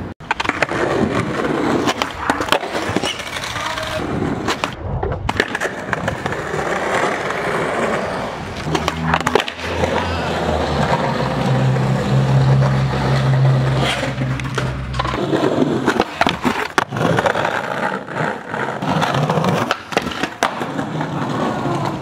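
Skateboard rolling over rough concrete and paving, with repeated sharp clacks as the board is popped and landed. A low steady hum runs under it for several seconds in the middle.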